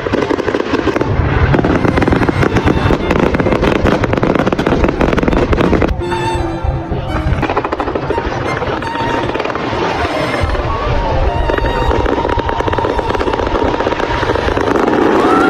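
Fireworks bursting and crackling in rapid, continuous succession, with music playing.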